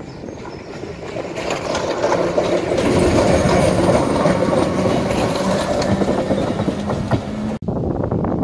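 Ex-London Underground 1938 tube stock electric train (Island Line Class 483) passing close by, its wheels clicking over the rail joints under a steady hum, building to loudest a few seconds in. The sound cuts off abruptly near the end.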